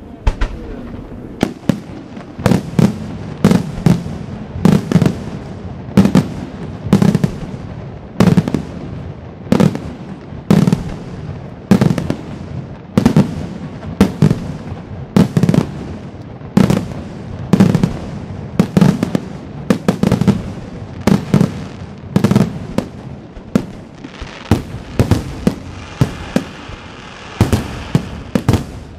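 Aerial firework shells bursting in a fast, continuous barrage: loud sharp bangs about one a second, each trailing off in a short rumble. Near the end a hissing, crackling layer joins in under the bangs.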